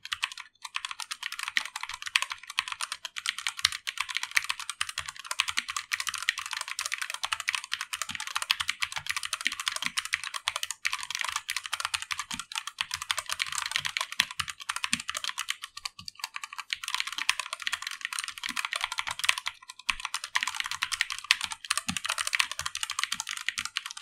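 Fast typing on a Redragon Deimos K599 mechanical keyboard fitted with Redragon's linear red switches. The keys give a steady, rapid clatter, with short pauses about two-thirds of the way in.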